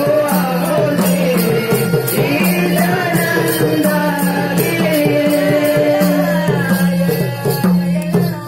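Live folk-theatre music: a two-headed barrel drum played by hand in a steady rhythm, with a melody of held notes stepping up and down over it and small cymbals ticking regularly.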